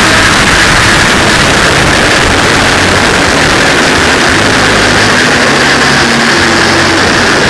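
Honda Fireblade inline-four with a Yoshimura aftermarket exhaust, running steadily at speed inside a road tunnel, loud and without pauses or sharp revs.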